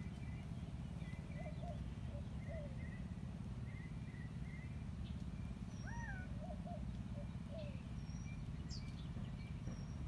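Birds calling: scattered short chirps, a whistled note that rises and falls about six seconds in, and a few thin high peeps near the end, over a steady low rumble.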